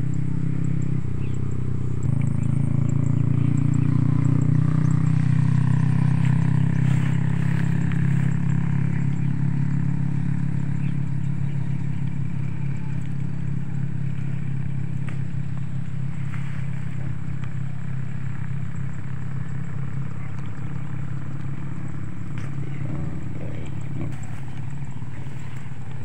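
A small engine running steadily with an even low hum, growing a little louder a couple of seconds in and then easing slightly.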